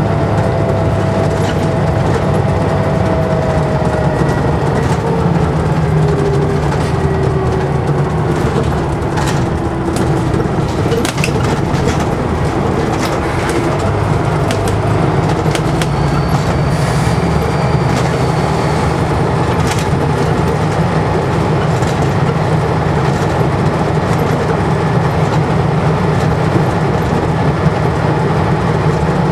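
Scania N94UD double-decker bus under way: a steady low engine drone with whines that glide and fall in pitch through the first half. A faint high turbo whistle comes in about halfway through, over scattered rattles and clicks from the bodywork.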